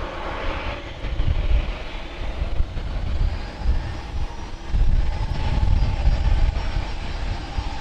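Jet airliner engines rumbling heavily, with a faint steady turbine whine above the rumble.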